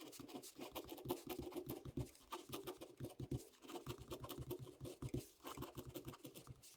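Faint, rapid, irregular scratching and clicking, like hands handling or rubbing something close to the microphone.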